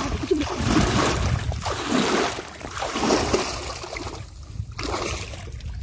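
Shallow stream water splashing and sloshing as a man wading in it beats and kicks the water with his hands and legs. The splashing is heavier for the first two seconds or so, then lighter.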